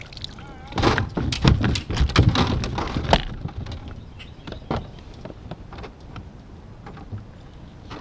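A bass thrashing in a landing net as the net is swung out of the water onto a plastic kayak deck. There is a burst of thumps, rattling and dripping water for about two seconds, then scattered light knocks.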